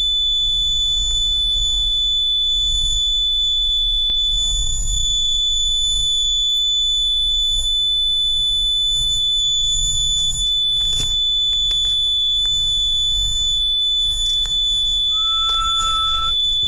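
Fire alarm control panel's buzzer sounding one steady, unbroken high-pitched tone: the trouble signal for a sprinkler riser fault, before the panel is reset.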